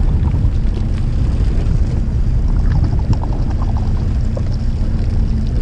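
Steady low rumble of wind buffeting the microphone on a fishing boat at sea, with a faint steady hum underneath.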